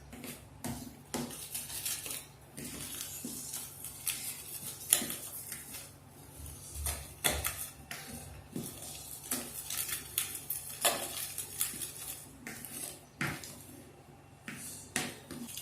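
A utensil stirring dry cake ingredients (flour, cocoa and raising agents) in a bowl, with irregular clinks and scrapes against the bowl's side.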